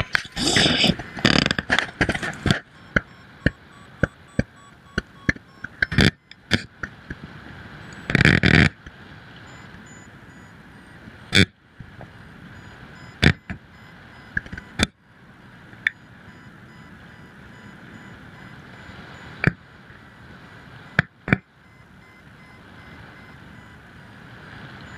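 Wind rushing over the microphone of a helmet-mounted camera in paragliding flight: a steady rush with irregular gusts, loudest in the first couple of seconds and again about eight seconds in, and many sharp clicks and knocks.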